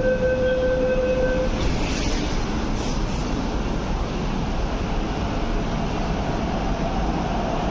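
MTR East Rail Line 9-car R-train electric multiple unit pulling out along the platform, a steady rumble as it gathers speed. Its traction motor whine comes in near the end. A steady electronic tone cuts off about a second and a half in.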